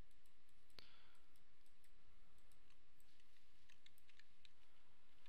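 Scattered computer mouse clicks and key taps, with one sharper click about a second in and a run of quicker clicks past the middle, over a steady low hiss.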